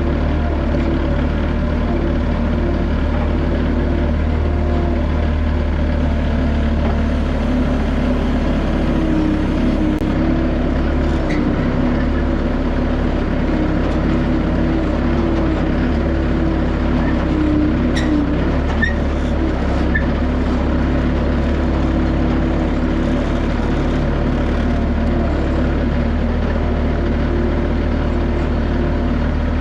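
Skid steer engine running steadily, with a couple of faint clicks.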